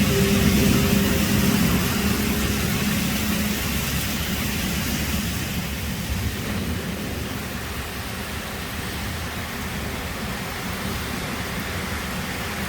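Steady rush of heavy storm rain and wind. A vehicle's engine hum is heard at first and fades away within the first few seconds.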